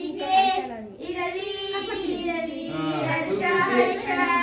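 Voices singing, a child's voice prominent, with held and gliding notes that carry on without a break.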